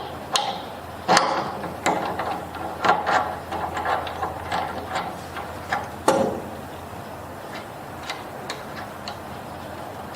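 A wrench working a crank-removal tool to loosen it, giving irregular metallic clicks and knocks. The knocks are louder in the first three seconds and again about six seconds in, then lighter ticks follow.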